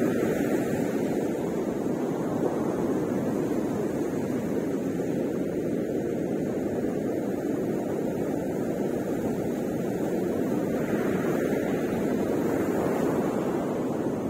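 Ocean surf breaking on a beach: a steady rush of waves, swelling louder at the start and again about eleven seconds in.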